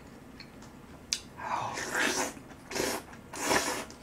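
Close-miked mouth sounds of eating noodles with chopsticks: a sharp click just after a second in, then three short noisy bursts of eating.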